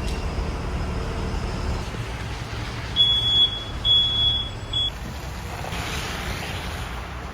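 Steady low rumble with three high electronic beeps at one pitch around the middle, about a second apart, the last one short.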